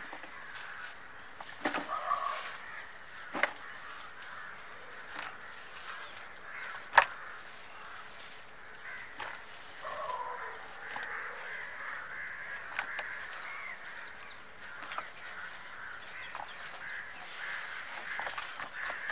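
Birds calling outdoors, with short pitched calls over a steady background hum of chirps. A few sharp knocks come through, the loudest about seven seconds in.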